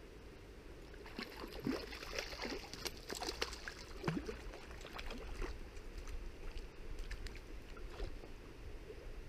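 River water splashing and gurgling close by, with a busy run of small splashes and gulps from about a second in until midway, then a few scattered ones.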